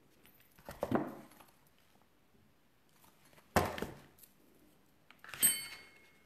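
Three short knocks as a metal modelling tool and hands bump against a worktable. The last knock, near the end, leaves a brief metallic ring.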